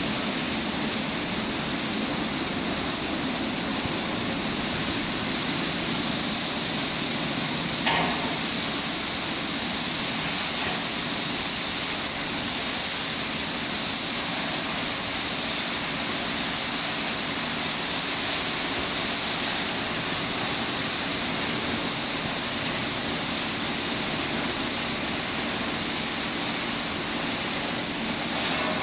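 CF-340 rollover car wash machine washing a car: a steady mechanical whir of its motors and rotating brushes with water spraying, and one short knock about eight seconds in.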